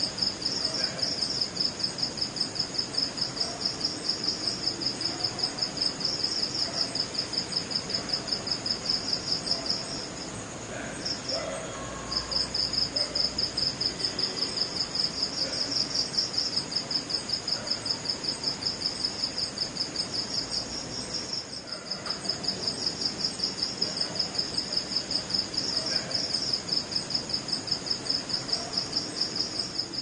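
Male crickets giving their mating call: a fast, even run of high chirps, about four a second, over a steady higher trill. The chirping breaks off about ten seconds in, with one short burst, and resumes about two seconds later.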